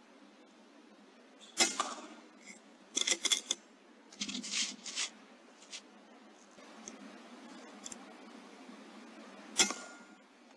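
Airmaks Krait L .22 air rifle firing: a sharp crack about one and a half seconds in, then a quick run of clicks a second or so later and a few softer knocks. Another sharp crack comes near the end.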